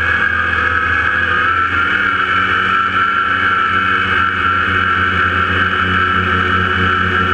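Scratch-built tricopter's electric motors and propellers whining steadily in flight, heard from the onboard camera, the high pitch wavering slightly with the throttle over a low hum.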